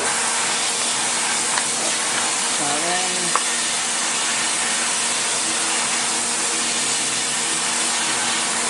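Steady rushing hiss of a duct-cleaning vacuum running on the furnace ducts, with a faint hum under it. A brief voice sounds about three seconds in, followed by a small click.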